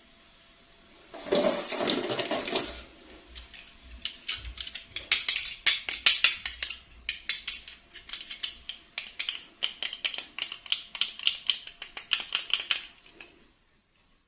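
Hands handling hard plastic doll parts and packaging. A short rustle comes about a second in, then a long run of quick, light clicks and taps that stops near the end.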